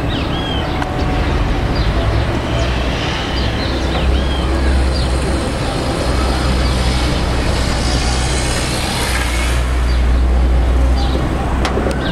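Outdoor town ambience: steady traffic noise that swells for a couple of seconds late on. There is a low rumble of wind on the microphone and a few short bird chirps.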